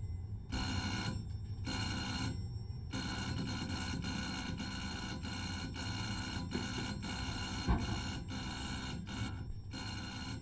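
A pulsing electronic tone made of several steady pitches. It comes in on-off bursts of under a second for about three seconds, then sounds almost continuously with brief breaks.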